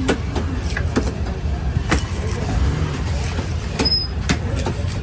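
Sharp knocks at irregular intervals, typical of a cleaver chopping through seer fish (vanjaram) on a wooden block, over a steady low rumble of background noise.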